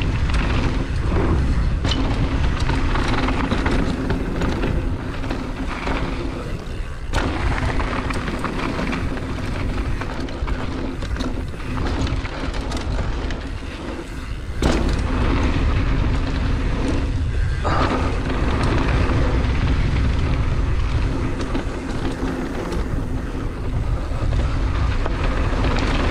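Wind buffeting the action camera's microphone over the rumble and rattle of a GT Fury downhill mountain bike's knobby tyres rolling fast on hardpacked dirt. The noise breaks off briefly a few times, with a sharp knock about fourteen seconds in.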